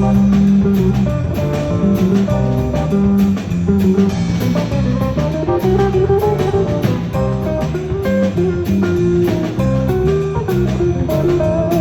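Live band playing an instrumental passage: guitar over a drum kit keeping a steady beat, with no singing.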